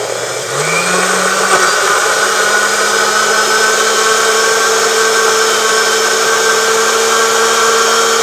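Countertop blender running, puréeing softened chiles, tomato, garlic and broth into a smooth salsa. Its motor climbs in pitch as it spins up in the first second or two, then runs loud and steady.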